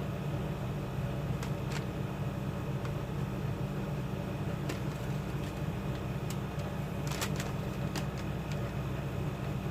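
Steady low hum with a handful of faint, short clicks scattered through it.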